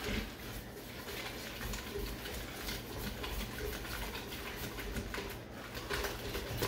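Wire whisk beating an egg-and-milk crepe batter in a bowl: a rapid, steady clicking and scraping of the whisk against the bowl.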